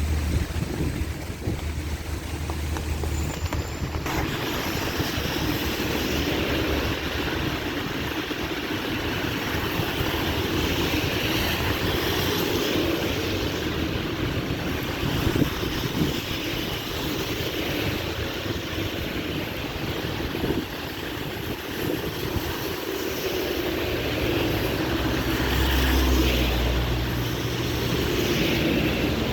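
Heavy rain pouring down, a steady dense hiss. A low rumble grows stronger for a few seconds near the end.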